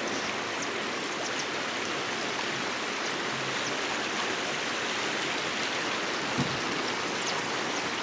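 River rapids rushing with a steady, unbroken wash of water noise. A short thump about six and a half seconds in.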